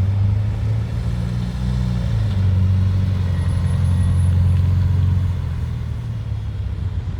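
Subaru Impreza 2.5RS's 2.5-litre flat-four engine running with a steady low hum, swelling a little midway and easing toward the end.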